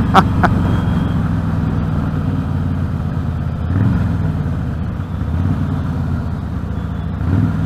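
Harley-Davidson Fat Boy's 103-cubic-inch V-twin engine running steadily while the motorcycle cruises in gear. The engine note rises briefly about four seconds in and again near the end.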